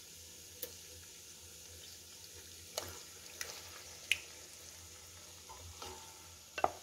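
Marinated chicken pieces going into a steel pot of frying onion-tomato masala and being stirred with a wooden spatula: a low steady sizzle, broken by about six short knocks of the spatula and bowl against the pot.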